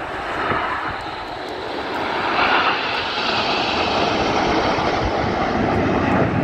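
Red Arrows' nine BAE Hawk T1 jets flying past in formation: a steady rushing jet noise that grows louder about two seconds in and then holds.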